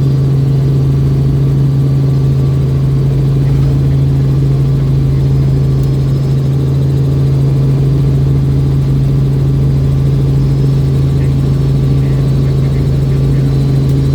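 Robinson R44 helicopter running steadily: a loud, constant drone with a strong low hum and no change in pitch.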